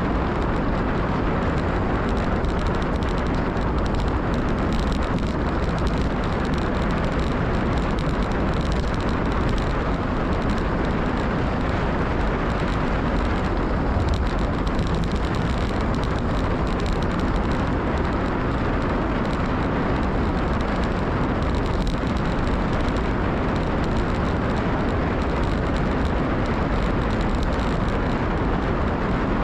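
Steady rush of wind over the microphone, mixed with the rumble of a gravel bike's Maxxis Rambler tyres rolling over a dirt and gravel road.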